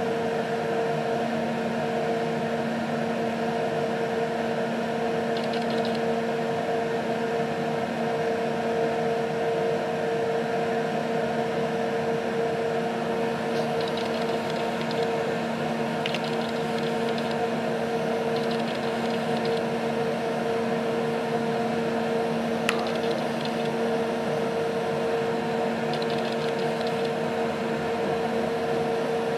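Steady hum inside an intercity train carriage rolling slowly: an even drone with a low tone and its octave held throughout. A few faint, brief hisses come in the second half, and a single click about three-quarters of the way through.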